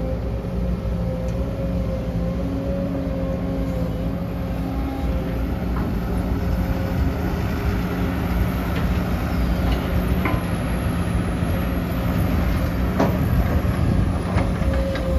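Sumitomo SH250-6 hydraulic excavator's diesel engine running steadily under load, with a held hydraulic whine, as it digs soil, swings and dumps it into a dump truck bed. A few sharp knocks come in the second half.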